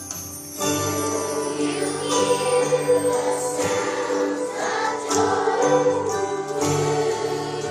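Music with a choir singing over steady instrumental accompaniment, starting up about half a second in.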